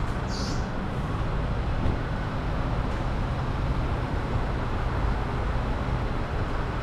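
Steady low rumble of vehicle engines, with a brief high hiss about half a second in.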